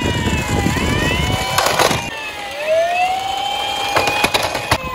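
Several toy police cars' electronic sirens sounding at once, their rising and falling tones overlapping. Plastic toy cars rumble down a wooden slope and knock together about two seconds in and again near the end.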